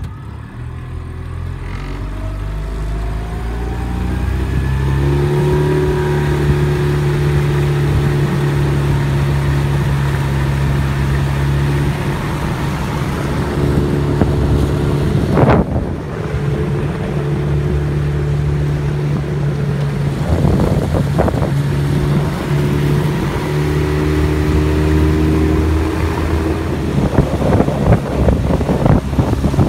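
Yamaha 20 hp four-stroke outboard motor being throttled up gently over the first few seconds, its pitch rising, then running steadily under way, held to low revs for its first-hour break-in. A single sharp thump about halfway through.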